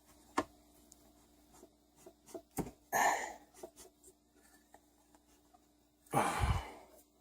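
Light metal clicks, taps and scraping as a small Tecumseh engine's connecting rod and crank are worked by hand to free the rod, with two louder scraping rubs about three and six seconds in. A faint steady hum runs underneath.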